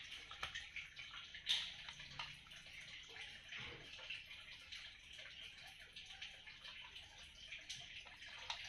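A cat eating dry kibble from a plastic bowl: faint, irregular crunching and clicking of chewing, with one louder click about a second and a half in.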